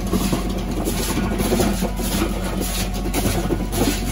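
Tractor engine running steadily, a constant low hum.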